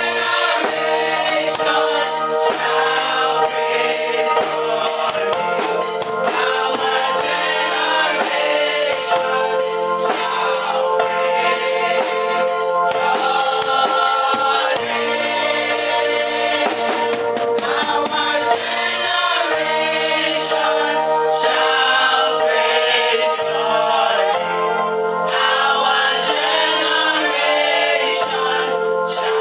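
Gospel singing by a group of voices over instrumental accompaniment with a steady beat.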